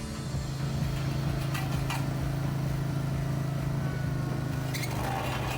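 An engine on asphalt repair equipment running at a steady hum, with a few sharp metallic clinks from work tools.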